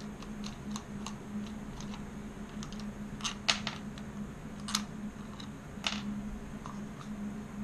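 Small metal tools and parts clicking and clinking against a wooden workbench as they are handled, with a few sharper knocks in the middle. A steady low hum runs underneath.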